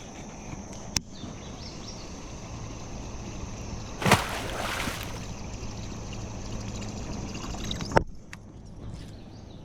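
Water sloshing around a kayak being paddled on a fast-flowing creek, with one loud splash about four seconds in and a couple of sharp knocks.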